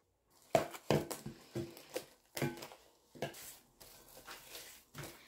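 Plastic cling film crinkling and crackling as it is stretched over a glass bowl by gloved hands: a string of irregular sharp crackles, starting about half a second in.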